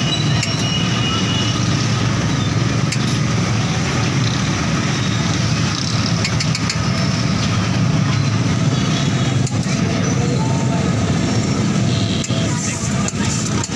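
Steady, loud street noise of passing traffic and engines with faint voices, broken by a few sharp metallic clicks of utensils against a steel griddle.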